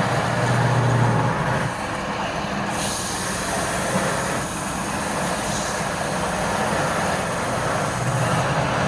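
Wood lathe running steadily with a low motor hum and a wide hiss that strengthens about three seconds in.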